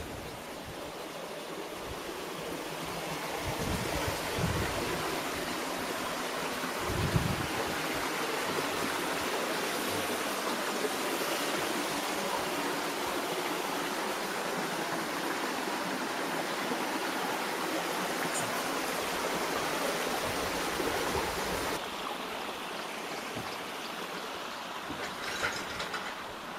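Water pouring from an artificial pool waterfall into the pool, a steady rush that grows louder over the first few seconds and drops somewhat near the end.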